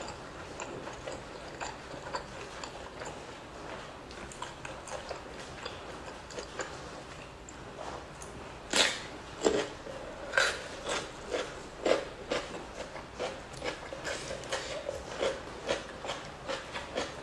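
Close-miked mouth sounds of a person eating rice and fish skin by hand: wet chewing and lip smacking. There is a sharp crunch about nine seconds in as a raw cucumber is bitten, then steady chewing about twice a second.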